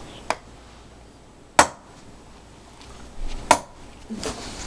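Toy hammer knocking on a wooden bureau: sharp single knocks a second or two apart, with a few softer taps near the end.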